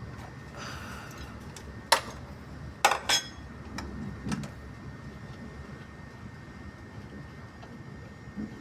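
A few sharp metallic clinks and taps, the loudest about two and three seconds in, some with a short ring: the wrench, bolt and belt tensioner pulley being handled as the pulley is taken off the engine.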